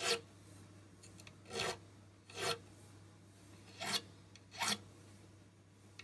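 Fret dressing file drawn across the ends of new stainless steel frets, rounding off the sharp fret-end edges. Five short filing strokes, a second or so apart.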